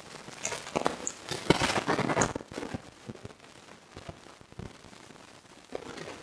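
Crackling rustle, dense for about two seconds in the first half, then only faint scattered clicks.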